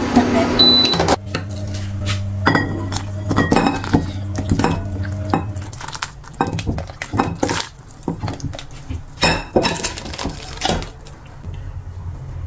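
A ladle clinking and scraping against a stainless steel pot and glass bowls as soup is served: a string of irregular sharp clinks and knocks that thin out near the end, over a steady low hum.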